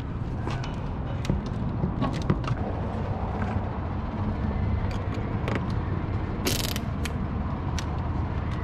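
A steady low mechanical rumble runs under scattered light clicks and knocks from the plastic bumper and lip being handled, with a short hiss about six and a half seconds in.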